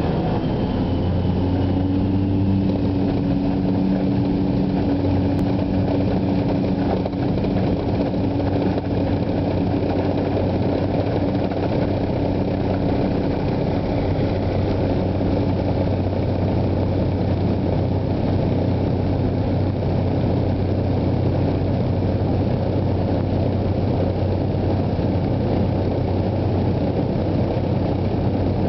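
Floatplane's piston engine and propeller running at a steady drone, heard from inside the cabin as the plane taxis on the water.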